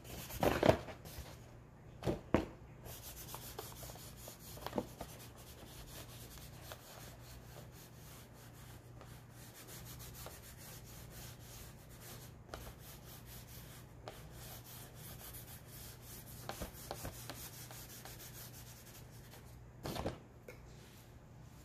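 Fingers and palm rubbing chalk across black poster board to smudge and blend it: a soft, steady dry rubbing, with a few light knocks near the start and one near the end.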